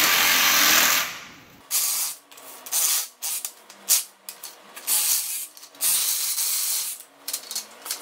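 Corded reciprocating saw cutting through thick coaxial cable: a steady run at first, then several short bursts of about a second each with pauses between the cuts.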